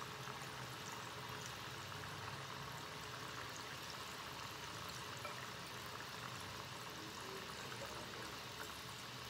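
Papdi, sewali and nimki made from maida dough deep-frying together in hot oil in a steel pan: a steady sizzle with fine crackling.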